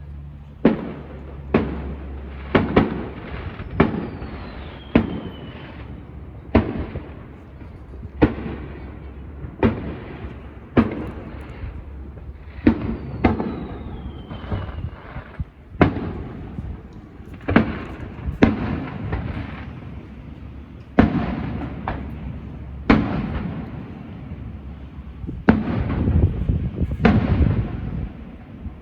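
Aerial fireworks bursting: about twenty sharp bangs, one every second or two, each trailing off in a rolling rumble. A faint falling whistle is heard twice.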